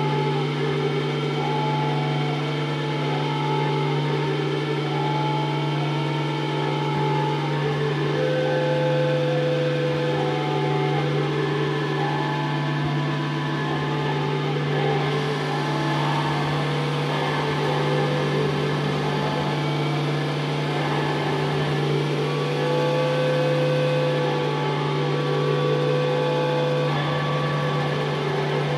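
Experimental drone music: a steady low drone under layered held tones, with a short figure repeating over and over in the middle register and higher tones swelling in and out.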